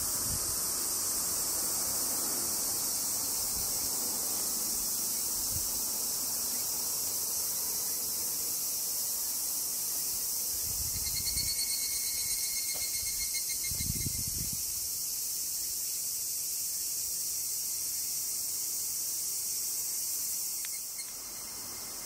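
Steady, high-pitched chorus of cicadas in woodland. A shorter pulsing call joins about halfway through for a few seconds, and there are a couple of soft low thuds.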